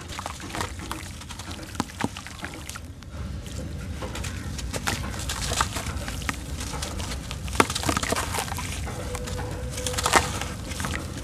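Soft, wet sand-cement lumps being crumbled by hand, with gritty crunching and crackling as the crumbs pour and patter into shallow water. The crumbling gets busier about four seconds in, with a few sharp snaps along the way.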